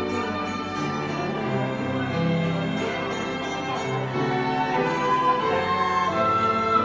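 Small ensemble of violins, keyboard and bass guitar playing a light tune together, a bass line stepping under the violin melody.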